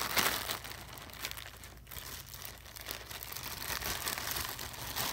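Clear plastic packaging crinkling as ski goggles are handled and put back into it, on and off, easing briefly about two seconds in.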